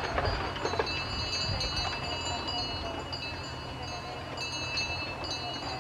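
Bells ringing, several steady high tones that carry on with brief breaks, over low wind rumble on the microphone.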